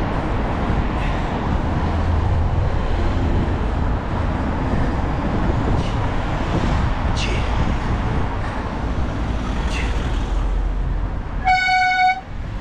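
Steady road traffic noise from passing cars and buses on a busy road. Near the end comes one loud, pitched beep lasting about half a second.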